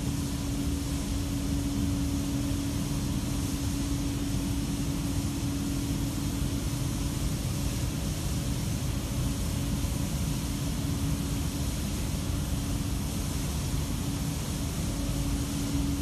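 Machinery of a PET bottle recycling washing line running: a steady low drone with a hum that fades somewhat in the middle and comes back strongly near the end.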